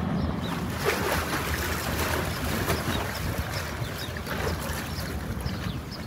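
Wind buffeting the microphone over a continuous wash of harbour water, with a low rumble underneath.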